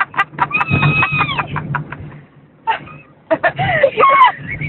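A person imitating a guinea pig with quick high squeaks and drawn-out squeals, some gliding in pitch, over a steady low car hum.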